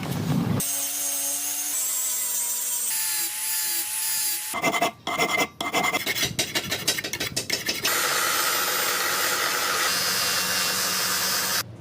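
Knife-making tool work in quick cuts: a steady machine whine, then a run of rapid rasping strokes, then a steady rasping or grinding noise that stops abruptly near the end.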